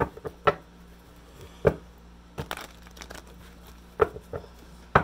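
A tarot deck being shuffled by hand: irregular sharp card slaps, about seven in five seconds.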